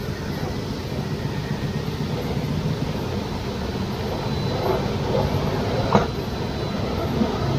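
A 1/10-scale RC rock crawler, a Toyota Land Cruiser 80 body, crawls slowly over rocks with a faint high whine from its electric motor and gears. It runs over a steady rushing background, with a single sharp knock about six seconds in.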